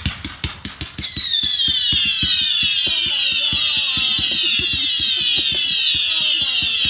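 Fireworks cake going off: a fast run of pops for about a second, then many loud shrill whistles at once, sliding slowly down in pitch over continuing pops.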